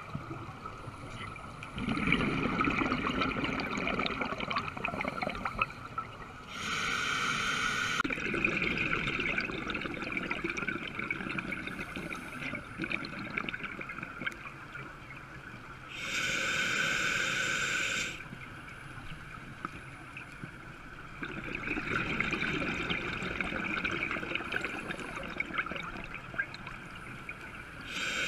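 Scuba diver breathing through a regulator underwater: a hissing inhale about every ten seconds, with longer gurgling bursts of exhaled bubbles between the breaths.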